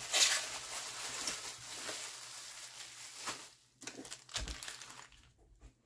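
Plastic bubble wrap crinkling as hands fold it around strands of beads, loudest just after the start and dying away about three and a half seconds in, followed by a soft thump.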